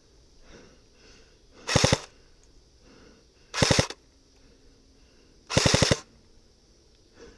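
Airsoft gun firing three short bursts of rapid full-auto shots, about two seconds apart.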